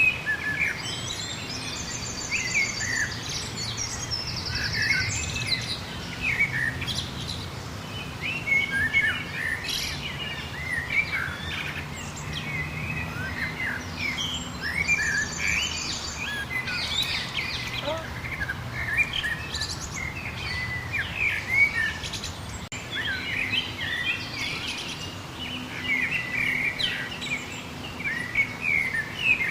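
Several wild birds chirping and singing at once, short whistled notes and slurs overlapping, with a high rapid trill a few times. A faint low hum runs underneath.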